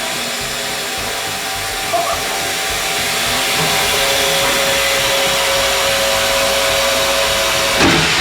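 Snowboard base-grinding machine running with water on, a steady whirring hiss as the board's scratched base is ground smooth. A steady hum grows louder about halfway through, and there are a couple of brief knocks.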